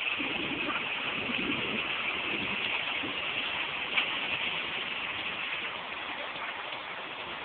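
Steady hiss of water that fades slowly, with a single sharp click about four seconds in.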